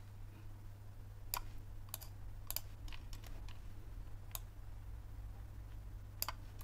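A handful of isolated clicks from working a computer's mouse and keys, spaced a second or more apart, over a steady low hum.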